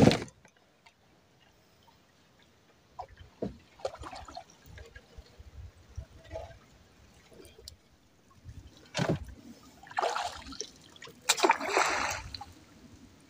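Water splashing and dripping as a drift gillnet is hauled aboard a small boat, with scattered light knocks and a few louder splashes in the second half.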